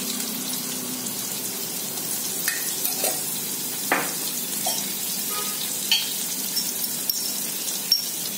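Onions, green chillies and curry leaves sizzling steadily in hot oil in a kadai, with turmeric powder just stirred in. A few short clinks of the steel slotted spoon against the pan cut through the sizzle.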